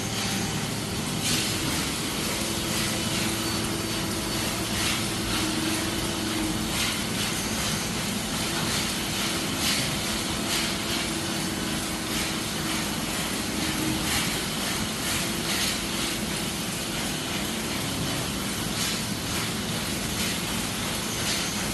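Metalworking factory machinery running steadily: continuous mechanical noise with a low hum and frequent short clanks and clicks.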